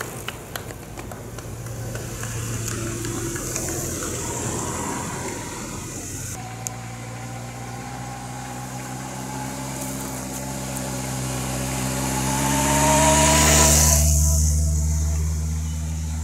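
A motor vehicle's engine running steadily, growing louder as it comes closer and passing close by about 14 s in, its pitch dropping as it goes past. Before the engine sets in, about 6 s in, there is only mixed roadside noise.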